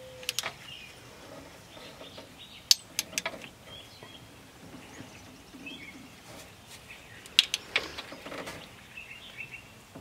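Sharp metal clicks and clinks of a ratchet and stud extractor being worked onto a broken, rusted bolt, in three short clusters. Birds chirp faintly in the background.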